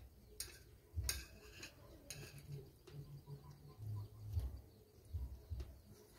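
A steel spoon scraping and clinking against a steel bowl of upma, a few short clicks in the first couple of seconds, followed by soft low chewing sounds.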